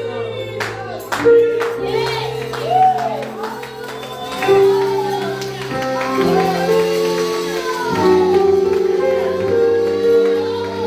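Slow gospel worship music: sustained keyboard chords that change every second or two, with a singing voice gliding over them and a few percussion hits about a second in.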